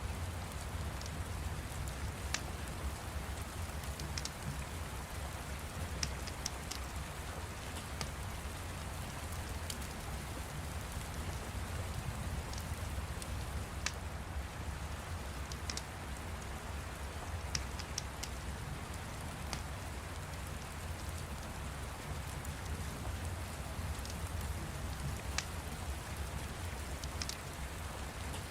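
Steady rain, an even hiss with a low rumble underneath, with irregular sharp crackles of a fire every second or two.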